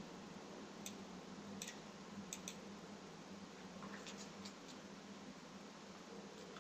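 A few faint, sharp computer mouse clicks, scattered and spaced irregularly, over a steady low hum of background noise.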